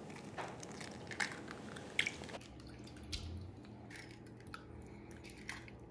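Eggs being cracked one after another into a large bowl: faint sharp taps of shell on the rim, about one a second, with soft wet sounds as the eggs slide in.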